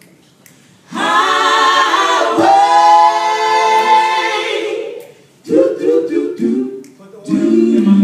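Gospel choir singing a cappella in close harmony, starting about a second in with long held chords, then a pause and shorter sung phrases.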